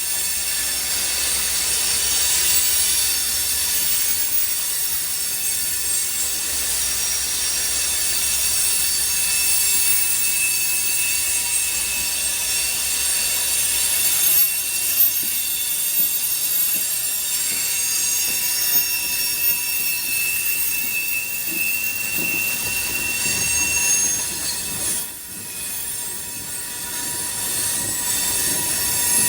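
Canadian National train cars rolling past, their steel wheels squealing against the rails in a continuous screech of several shrill tones at once. The sound eases briefly about 25 seconds in, then picks up again.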